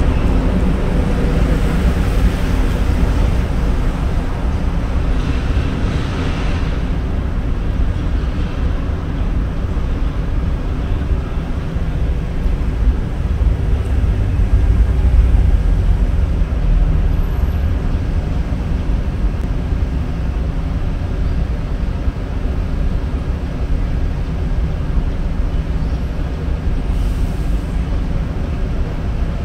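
Steady low rumble with a constant hum, like running engine or traffic noise, holding unchanged throughout.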